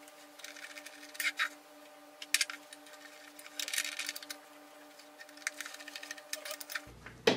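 Small screwdriver driving mounting screws through metal brackets into a 2.5-inch SSD: short runs of clicking and scraping metal, with a sharper click near the end, over a faint steady hum.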